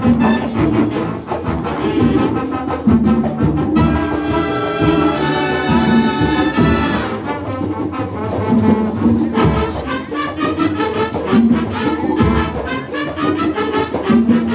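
Latin marching band playing, its brass section of trumpets and trombones over percussion, holding a long sustained chord from about four to seven seconds in before the rhythmic playing resumes.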